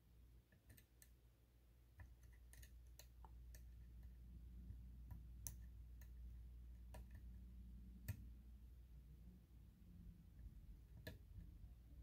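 Faint, irregular metallic clicks, a dozen or so spread unevenly, from a pick tapping and lifting the telescoping inner and outer pins of a tensioned Mul-T-Lock cylinder while it sits in a deep false set.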